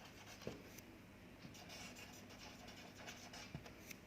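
Faint scratching of handwriting, with a couple of light taps of the pen.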